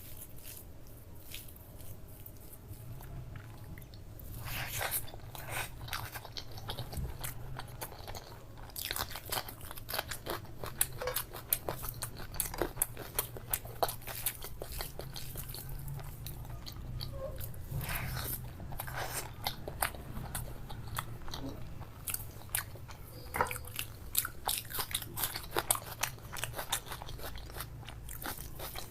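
A person eating egg curry and chicken curry: chewing and biting with many sharp, wet clicks and crunches, sparse at first and steady from about four seconds in.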